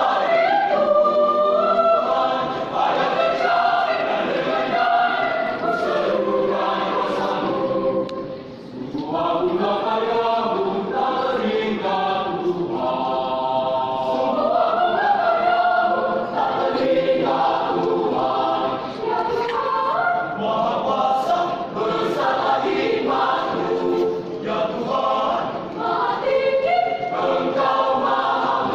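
Youth choir singing a sacred choral piece in several parts, with a brief break between phrases about eight and a half seconds in.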